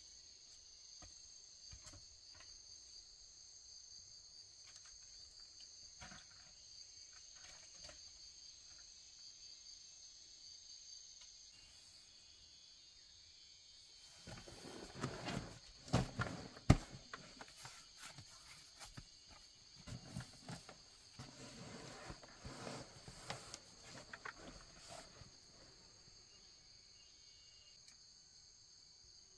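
Insects droning steadily in a high, even chorus. From about halfway through comes a stretch of irregular rustling and knocking, with one sharp knock a little past the middle.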